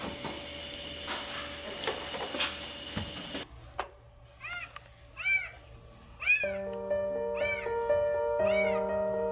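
A power tool grinds into a ceiling panel for the first few seconds. Then a cat meows in a rapid string of short, high cries from inside the ceiling cavity. Background music with held notes comes in about halfway through.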